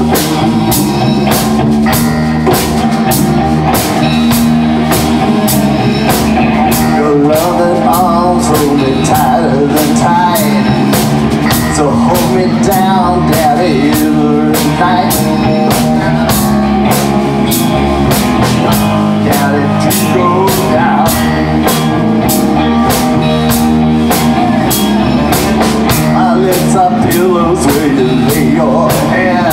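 Rock band playing live: electric guitars, bass and a drum kit keeping a steady beat, with a male voice singing over it in stretches.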